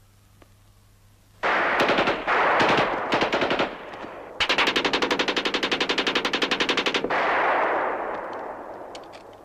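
Submachine-gun fire in a brick building. About a second and a half in come several short rapid bursts, then after a brief pause one long burst of nearly three seconds, with the echo dying away afterwards.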